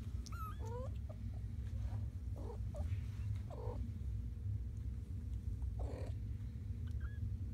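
Kittens mewing, with a few thin, wavering high cries in the first second and one more near the end, over a cat's steady low purring.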